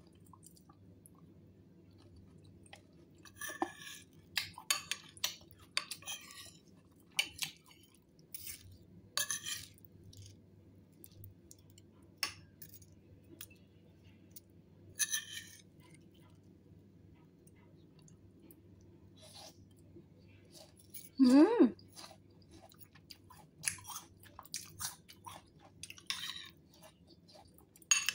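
A metal spoon stirring and scooping fruit salad in a creamy sauce in a ceramic bowl: irregular wet squishes and light clicks against the bowl, with one short, louder squeak about two-thirds of the way through.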